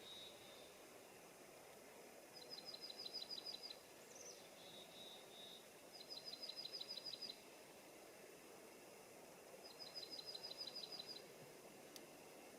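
A songbird singing faintly: three quick trills of about ten high, evenly spaced notes each, a few seconds apart, with a softer short warble between the first two, over a faint steady hiss.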